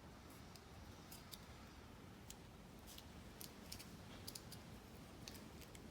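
Faint, scattered small clicks and crinkles of tape and sandpaper being pressed down by hand, over near silence.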